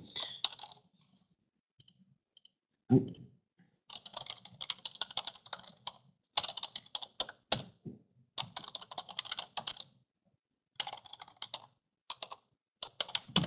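Typing on a computer keyboard: quick runs of keystrokes broken by short pauses, starting about four seconds in.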